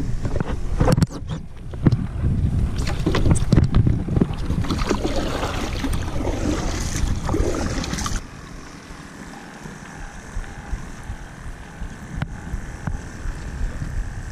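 Hands paddling over both sides of a paddleboard, scooping and splashing the water in uneven strokes, since the paddle is lost. About eight seconds in the splashing stops abruptly, leaving quieter steady wind noise on the microphone.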